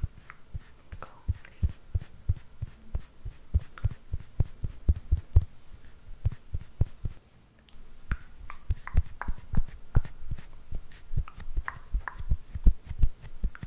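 Soft, quick patting taps of a makeup puff and fingertips dabbing right at the microphone, several a second in an uneven rhythm, with a brief pause about seven seconds in.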